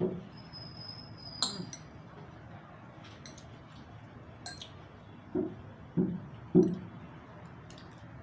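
Metal spoon clinking and scraping against a ceramic bowl of fried rice during eating: scattered sharp clinks, one ringing briefly about a second and a half in, and three dull knocks in quick succession near the end, the last the loudest.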